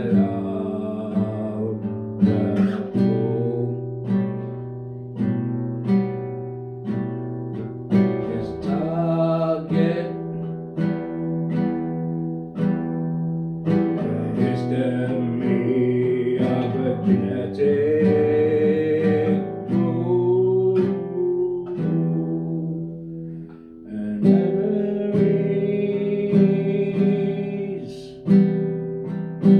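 Music: an instrumental passage led by a plucked and strummed acoustic guitar, with a melody line that bends and wavers in the middle and a short drop in level near the end.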